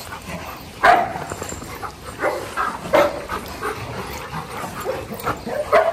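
Several dogs barking and yipping in short, separate barks, the loudest about a second in and again at about three seconds.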